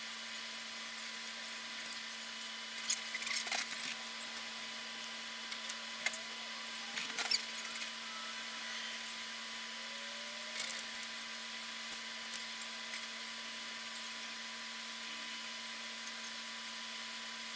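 Steady electrical hiss and hum of the recording's own noise, with no real ambient sound. It is broken by a cluster of small clicks and rattles between about three and eight seconds in, and a few fainter ones later.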